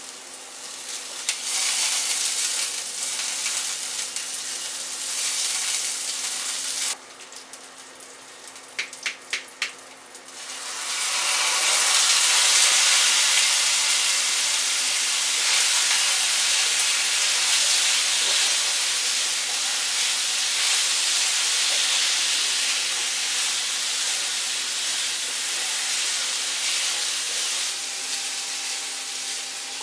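Oil sizzling in a frying pan with sliced red onion. After a short quieter stretch with a few knocks, cubed squash goes into the pan about ten seconds in and the sizzle turns louder and fuller as the pieces are stirred with a spatula.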